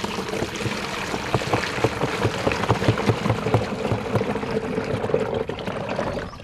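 Water poured from a plastic bucket into the narrow filler opening of a plastic knapsack sprayer tank, a steady splashing pour as the tank fills, which stops just before the end.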